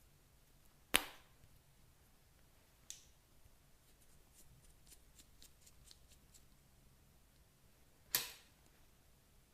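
Slime being mixed by hand, giving two loud sharp pops about seven seconds apart, a softer pop between them, and a run of faint quick clicks.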